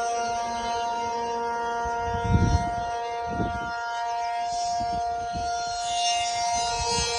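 ACA P-50 tornado siren sounding a steady, held tone during a siren test, with a brief low rumble about two seconds in.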